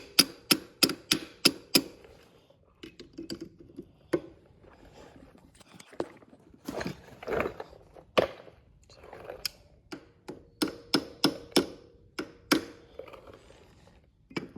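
Runs of sharp metal-on-metal clicks, about four a second, mixed with irregular knocks and scraping, as a hand tool works the front axle loose on a Yamaha 225 DX three-wheeler.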